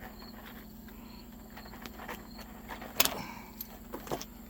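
Small sharp clicks and knocks of a tool working against the string trimmer's gear head as the old bearing is pried out, the sharpest click about three seconds in. Crickets chirp faintly.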